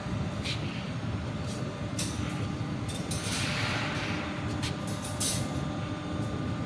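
Cable tray wire mesh production machinery running: a steady low mechanical rumble with sharp clicks every second or so and a burst of hiss about three seconds in.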